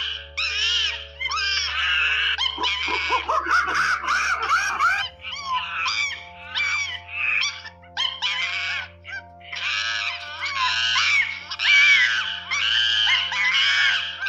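Monkeys screeching in a rapid series of short, shrill calls, with lower swooping calls for a couple of seconds near the start, over steady background music.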